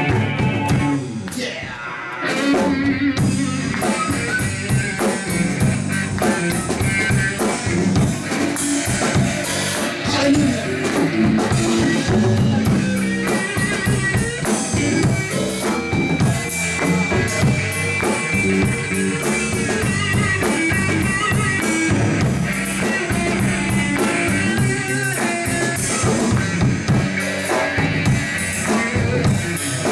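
Live band playing an instrumental passage of a praise song: electric guitar, bass guitar and drum kit, with no singing.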